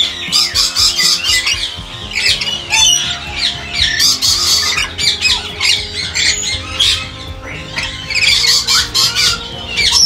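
Lorikeets calling with dense, rapid, high-pitched squawks and chatter, over steady background music.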